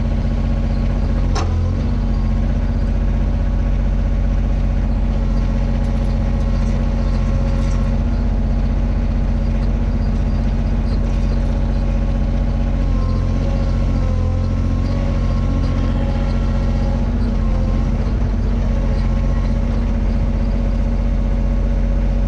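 Mini excavator's diesel engine running steadily, with one sharp clank about a second and a half in. Its pitch wavers briefly past the middle.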